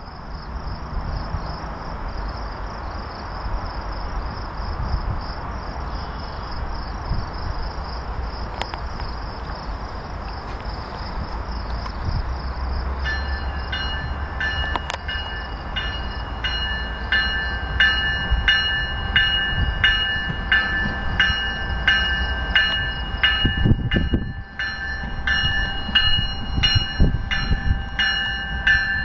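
GO Transit commuter train rumbling steadily. From about halfway through, a bell rings over it, a little more than once a second.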